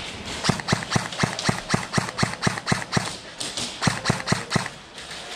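Sharp, evenly spaced knocks, about four a second, in a run of about eleven followed by a short run of four.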